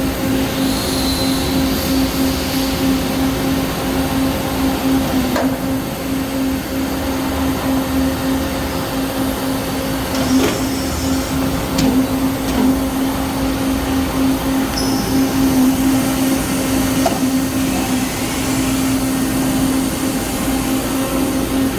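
Peddinghaus CNC beam drill line running: a steady machine hum with one strong constant tone, broken by a few short clicks and knocks.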